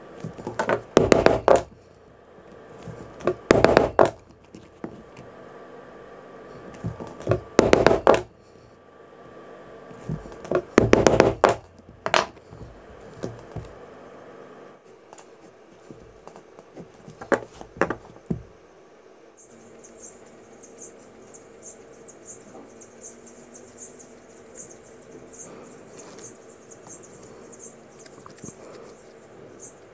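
Leather-working mallet blows in quick bursts of several strikes each, six bursts over the first eighteen seconds or so. A little after that a faint, fast scratching starts and keeps going.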